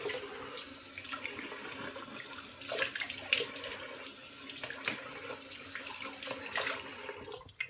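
Tap water running into a sink as something is rinsed under it, with a few brief sharp sounds along the way. The water is shut off abruptly near the end.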